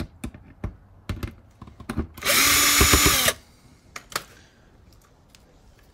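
Drill with a T25 Torx bit backing out an undertray screw: a few clicks and taps as the bit is set in the screw, then one burst of the motor running for about a second, its whine rising as it spins up and falling as it stops, followed by a couple more clicks.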